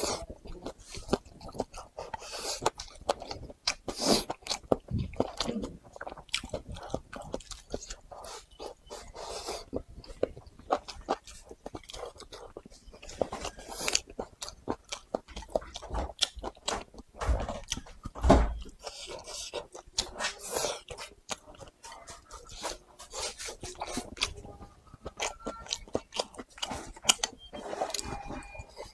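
Close-miked eating of dried tofu: chewing, biting and wet mouth smacks in an irregular run of short clicks, with one heavier thump about eighteen seconds in.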